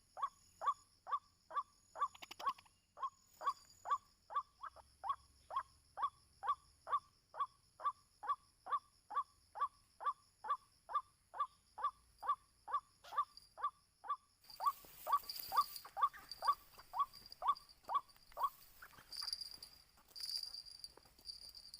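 White-breasted waterhen calling: a long, even run of short, falling 'kwak' notes, about two or three a second, that stops about three-quarters of the way through. A rougher, hiss-like noise joins from about two-thirds in.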